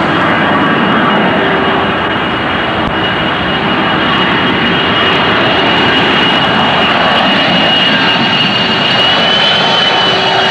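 Airbus A310-203 on final approach with its gear down: its two General Electric CF6-80A3 turbofans give steady jet noise with a high whine. The whine rises slightly in pitch near the end as the aircraft draws closer.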